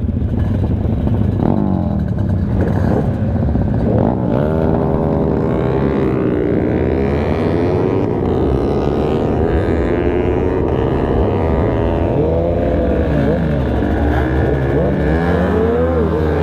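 A Kawasaki ZX-10R's engine and other motorcycles close by revving and accelerating together. Their pitch rises and falls as the throttle opens and closes and gears change.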